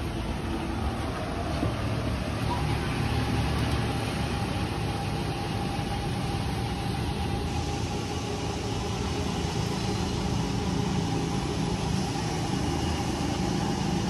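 Fuel dispenser pumping diesel into a vehicle's tank: a steady mechanical hum over a low rumble, with a steady mid-pitched whine coming in a couple of seconds in and holding.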